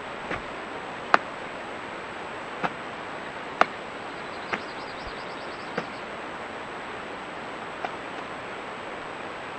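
Steady outdoor background hiss, broken by sharp clicks every second or so, with a faint rapid high-pitched trill about halfway through.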